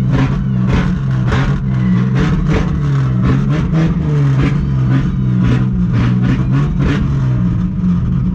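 Ford Falcon drift car's engine revving hard and continuously, the pitch rising and falling again and again as the car is drifted, with sharp repeated pulses two to three times a second.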